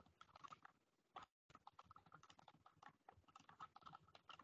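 Faint typing on a computer keyboard: a quick, uneven run of light key clicks.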